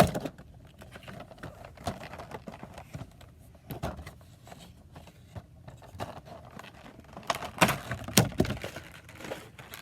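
A boxed Funko Pop's cardboard and plastic packaging being handled, with soft rustling and scattered taps and a cluster of louder knocks near the end.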